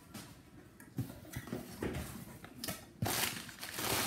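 Hands rummaging in a cardboard shipping box: a few light knocks against the cardboard, then a rustle of packing material from about three seconds in.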